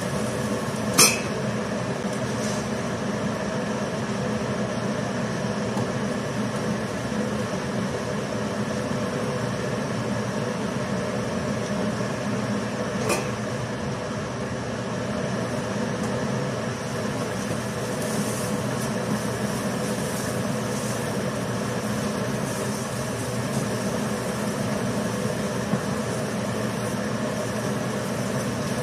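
Steady hum of a kitchen range-hood exhaust fan running over the stove. A metal pan lid clinks about a second in, with another small click near the middle.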